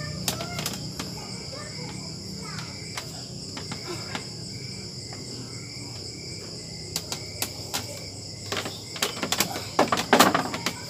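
Insects chirring steadily at a high pitch, with a low hum under it. Scattered knocks and clatter come through, closer together and loudest a little after nine seconds in.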